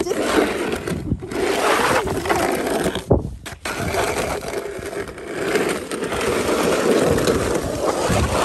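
Snow shovel scraping across pavement in long, noisy pushes, with short breaks about a second in and again about three seconds in.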